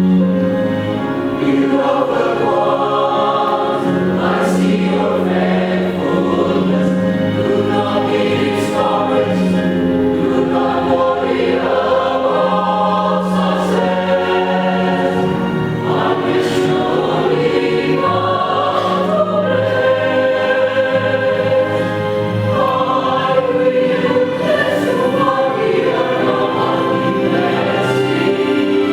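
A church choir singing an anthem, with continuous sustained notes.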